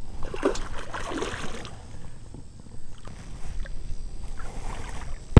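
Water splashing beside a small fishing boat as a hooked blue catfish is worked at the surface, with handling noise on the boat and one sharp, loud knock at the very end.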